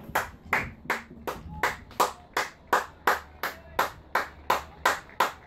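One person clapping steadily, about three claps a second, applauding a batsman's shot.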